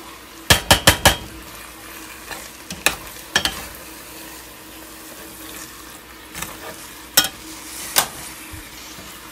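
A utensil knocking and scraping against a stainless-steel pot while stirring spaghetti in sauce over a faint steady sizzle. There is a quick run of four or five clinks about half a second in, then scattered single knocks.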